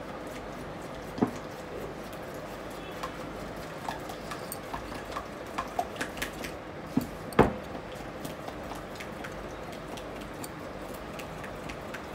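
Silicone spatula stirring a mixture in a glass mixing bowl: scattered light clicks and taps against the glass, with a sharper knock about a second in and two louder knocks a little past halfway, over a steady low hiss.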